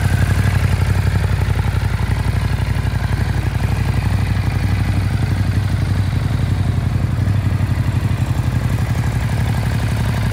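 Ducati Monster 821's Testastretta L-twin engine idling steadily, with a fast, even exhaust pulse.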